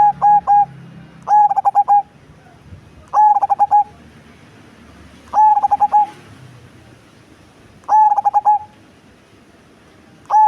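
Perkutut cemani, a black zebra dove, singing: short bouts of about six quick cooing notes, each bout under a second long, repeated every two to three seconds.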